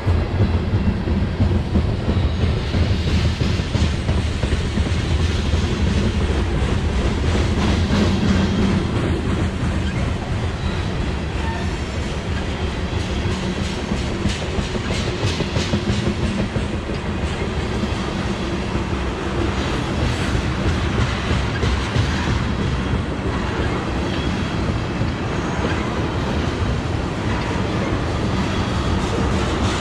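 A freight train's cars rolling past at steady speed: a continuous rumble with wheels clicking over the rail joints.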